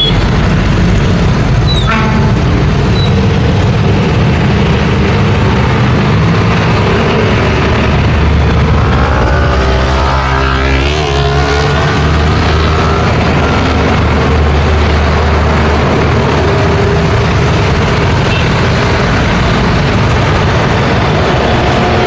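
Heavy road traffic: trucks and motorcycles passing close by over a steady low diesel engine rumble. About halfway through, a container truck's engine passes close, its note shifting in pitch. There is a brief high squeal about two seconds in.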